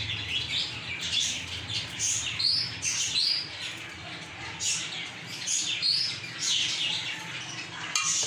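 Small birds chirping repeatedly, a quick run of short, high calls with rising and falling notes that go on through the whole stretch.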